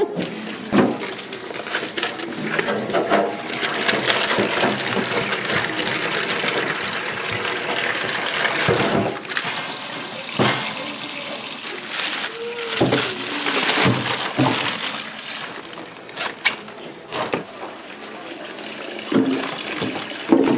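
Kitchen tap running hard into a stainless-steel sink, the water splashing over an octopus being rinsed, with scattered knocks and clatters of things handled in the sink.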